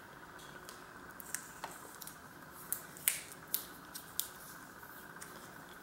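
Black tape being pulled from the roll and wrapped around bicycle brake cable housing and handlebar: faint crackling with several sharp little clicks, starting about a second in.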